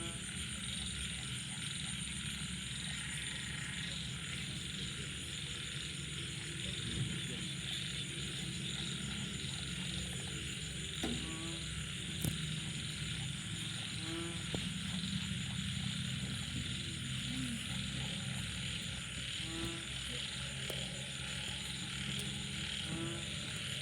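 Night chorus of frogs calling after rain: a dense steady mass of frog calls, with a pulsed croak repeating every few seconds. Insects trill steadily high above.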